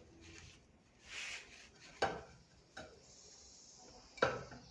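Small metal table-fan parts being handled and rubbed clean in petrol: a brief scrubbing swish, then a few sharp clinks of metal against metal or a dish.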